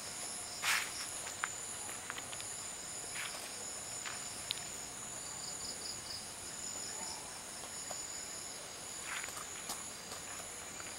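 Rainforest insect chorus: steady high-pitched buzzing tones with a pulsing trill beneath them. A few short rustles and clicks break in, the loudest just under a second in.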